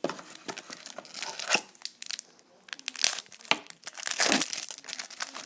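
Football trading cards being handled and flipped through, with irregular crinkling and rustling that swells louder several times.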